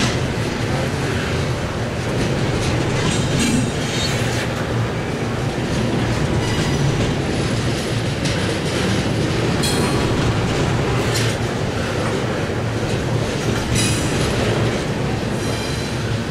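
Double-stack intermodal well cars of a freight train rolling past: a steady rumble of steel wheels on rail with clickety-clack over the rail joints, and a few brief high wheel squeals.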